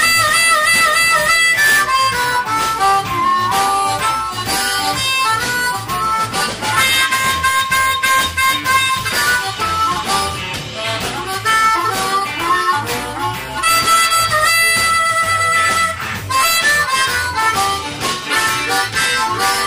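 Amplified blues harmonica played through a cupped microphone, with trills and long held notes, over a live band's electric guitars, bass and drums.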